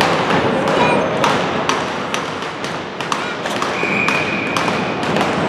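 Hockey rink sounds during a stoppage: irregular sharp knocks and taps, with a referee's whistle held steady for about a second near the end.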